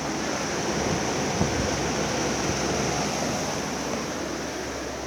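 Electric fan running, a steady rushing of air across the microphone, with one light knock about a second and a half in.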